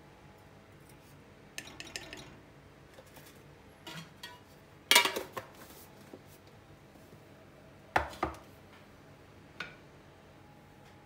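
Spoon clinking against a stainless steel Turkish coffee pot (cezve) as ground coffee is spooned in. A few separate metallic clinks, the loudest a ringing clatter about halfway through, then a double knock a few seconds later and a light tap near the end.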